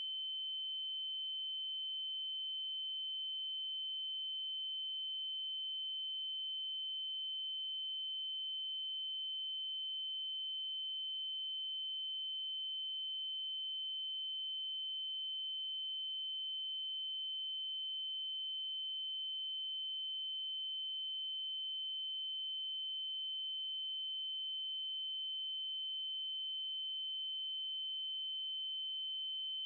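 Steady electronic test tone: a 3072 Hz triangle wave held at one high pitch without change.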